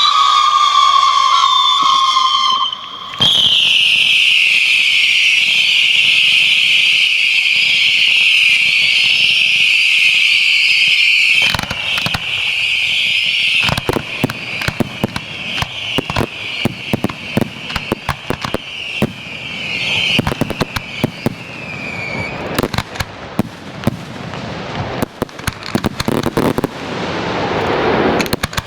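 Fireworks display: many whistling fireworks shriek together with falling pitch for about the first eleven seconds, then rapid bangs and crackling take over and grow denser toward the end, the whistles fading out about two-thirds of the way through.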